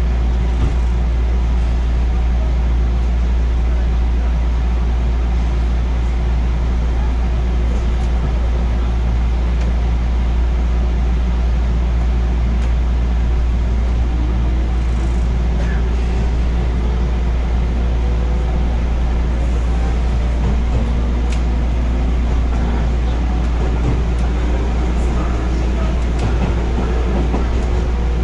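JR West 221 series electric train running, heard from inside the carriage: a steady low rumble of wheels on rail. From about halfway a motor and gear whine slowly rises in pitch as the train gathers speed.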